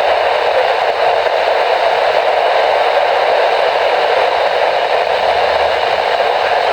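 Steady FM receiver static from a software-defined radio tuned to a NOAA Weather Radio channel, with no voice getting through: the weak, tropo-propagated station has faded into the noise.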